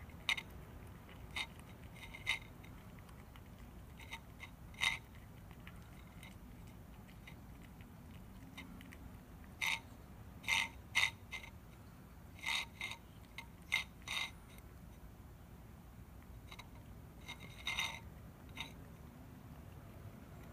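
A cat eating from a bowl: irregular short crunching clicks as it chews, some in quick clusters.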